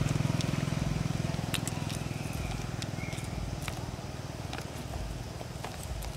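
A motorcycle engine running and fading steadily as it moves away. Scattered faint clicks and a short high chirp about three seconds in sit above it.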